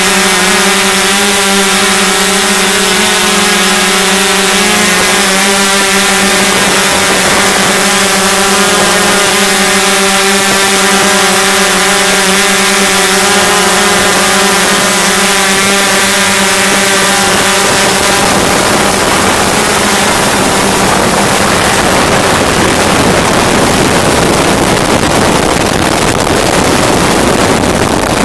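Hexacopter's electric motors and propellers buzzing loudly at a steady pitch, picked up close by the onboard microphone. About two-thirds of the way through, the steady tone blurs into a rougher rushing noise.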